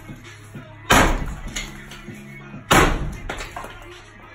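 Two sledgehammer blows on a brick chimney, about two seconds apart, each a sharp crack that tails off as bricks break loose.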